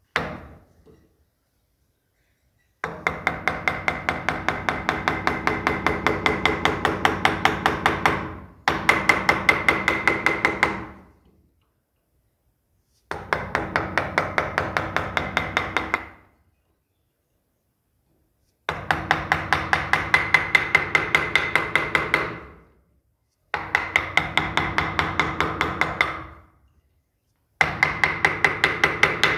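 A mallet tapping a wood-carving chisel into a carved wooden panel in quick, light, evenly spaced blows, about four a second. After a single blow at the start, the tapping comes in six runs of a few seconds each, with pauses between them.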